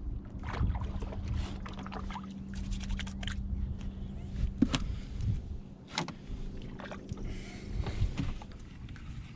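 Hollow knocks and bumps of someone shifting about and standing up in a small fishing boat, over a low rumble of wind on the microphone. A steady low hum runs underneath and stops about halfway through.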